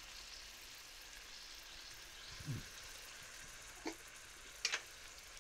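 Sliced sausage, onion and beans frying in a pot, with a steady faint sizzle. A brief low sound comes about halfway, then a click and a sharper double click near the end, like a utensil knocking the pot.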